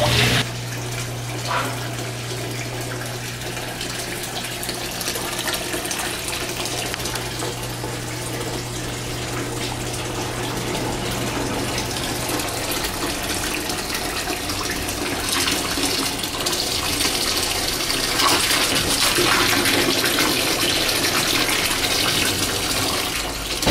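Water from a washing machine's drain pouring and splashing steadily, with a low hum that stops about halfway through.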